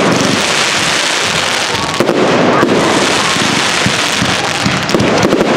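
Aerial fireworks display: a continuous barrage of bursting shells, many rapid sharp pops and bangs over a steady rumble.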